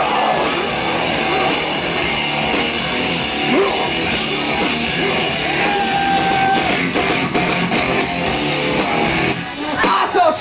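Live rock band playing loud, with electric guitar and drum kit, heard through a fan's recording from the crowd.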